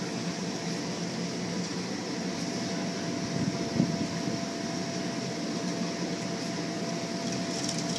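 Electric blower fan running steadily to keep an inflatable bounce house inflated: an even whir with a thin constant whine in it.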